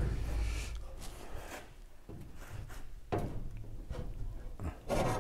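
A few faint knocks and handling noises from work on a raised recovery truck body, over a low steady hum.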